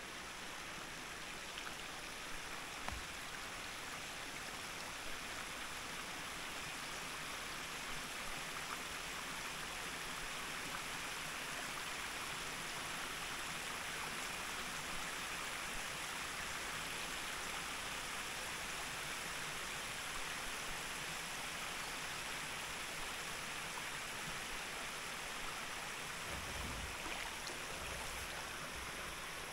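Steady rush of flowing river water, a little stronger in the middle, with a few soft low bumps near the start and near the end.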